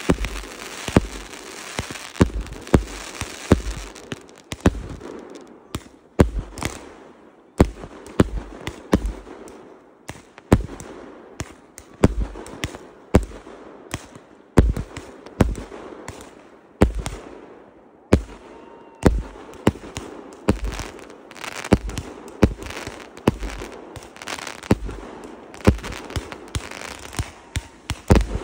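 Aerial fireworks set off close by and bursting overhead: a rapid, uneven run of sharp bangs, about two a second, with a crackling hiss between them.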